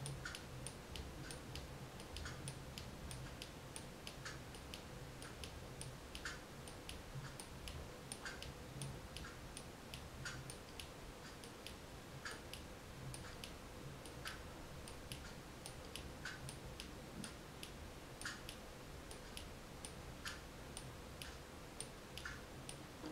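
Light, uneven ticking, a few clicks a second, from the mechanism of a wooden kinetic sculpture as its rings turn and its ball-tipped rod swings, over a faint steady hum.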